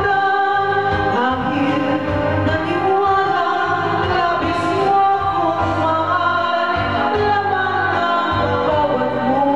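A singer performing a Tagalog ballad over a karaoke backing track, holding long notes.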